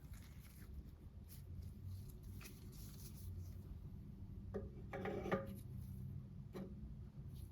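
Light handling noises: a few sharp ticks and a short burst of clicking and scraping about five seconds in, over a low steady hum.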